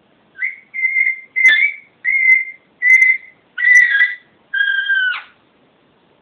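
Alexandrine parakeet giving a run of about seven short, clear whistled calls, roughly two a second, the last two pitched lower.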